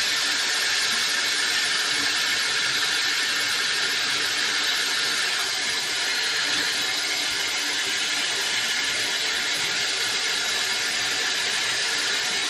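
Kitchen faucet running steadily, a thin stream of water splashing into a small bowl, with an even hiss.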